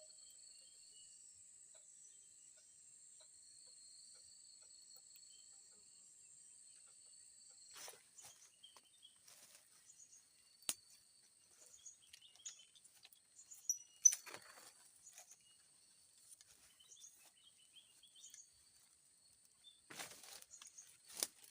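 Crickets chirring in a steady high drone. From about eight seconds in, rustling and scattered clicks join it, with a few sharp knocks, the loudest about halfway through.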